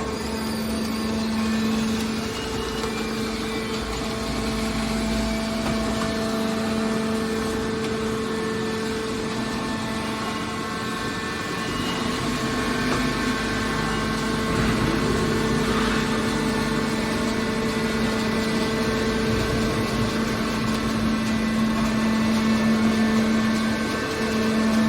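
Automatic metal baler's hydraulic power unit running, a steady hum of constant pitch.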